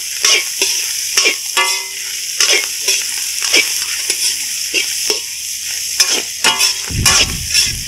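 Chopped mutton sizzling in hot oil in a large wok while a metal ladle stirs and scrapes it, in quick repeated strokes over a steady hiss.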